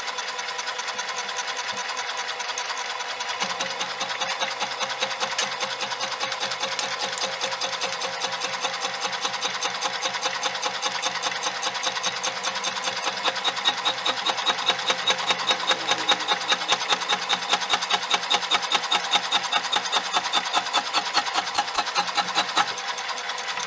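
Old power hacksaw (motor-driven reciprocating machine saw) cutting through a steel rod, its blade rasping back and forth in an even rhythm. The strokes get louder from about halfway through, with a thin metallic ringing over them.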